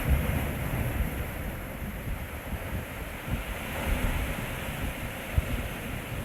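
Sea waves washing against the shore in a steady wash of surf, with wind gusting on the microphone in low, uneven rumbles.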